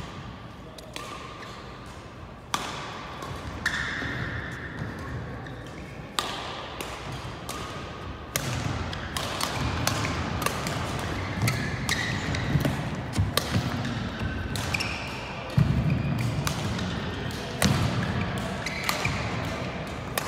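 Badminton rally: sharp racket strikes on the shuttlecock every second or two, with short squeaks of shoes on the court floor and footfalls between them. The loudest is a heavier thud about three-quarters of the way through.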